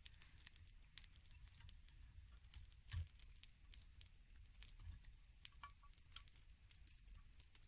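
Faint crackling and sizzling of meat cooking on a grill over an open wood fire, with scattered small pops and a soft knock about three seconds in.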